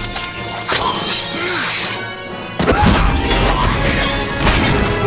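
Action film score under fight sound effects: several crashes and hits, the heaviest a deep boom about two and a half seconds in.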